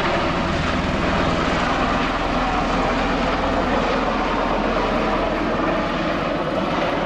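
Bell-Boeing CV-22B Osprey tiltrotor flying past in helicopter mode, nacelles tilted up: its twin Rolls-Royce AE 1107C turboshafts and proprotors run with a steady loud noise and a deep rapid beat from the rotors.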